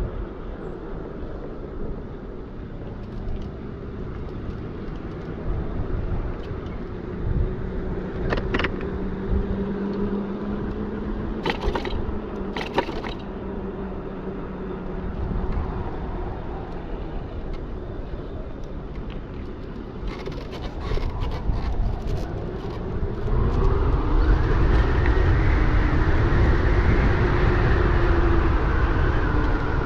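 Electric bike with a QS 273 hub motor being ridden: a steady motor whine over wind and tyre noise. The noise swells much louder about three-quarters of the way through as the bike picks up speed.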